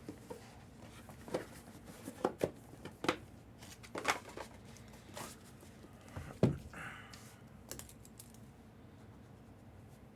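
Packaging of a mystery baseball being handled and opened. Scattered crinkles, clicks and taps, the loudest about six and a half seconds in, with a short tearing rasp just after.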